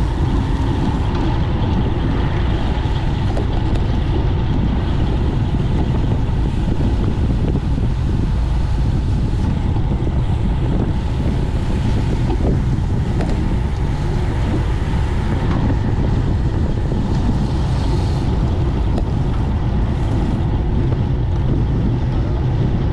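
Steady wind noise buffeting the microphone of a camera mounted on a road bike riding at speed, a constant low rumble and rush.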